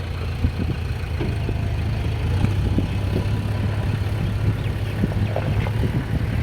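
A steady low engine hum, like a motor vehicle idling.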